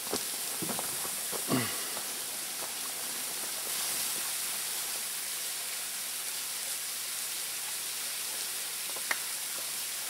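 Steady rush of a small waterfall pouring down a rock face into a pool, with a short falling sound about a second and a half in and a single click near the end.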